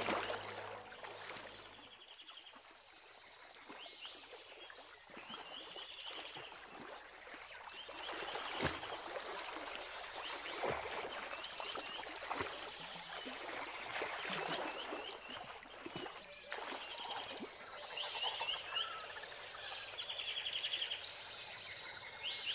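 Frog chorus: many short, high, repeated chirps and trills overlapping throughout. A few sudden sharp knocks stand out, the loudest about nine seconds in.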